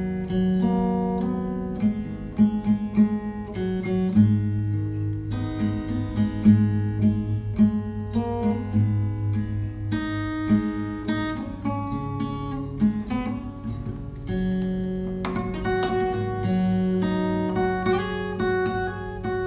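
Background music: plucked acoustic guitar playing a continuous run of notes and chords.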